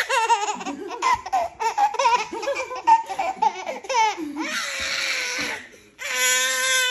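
A baby laughing in a run of short, squealing bursts while a dog licks its face.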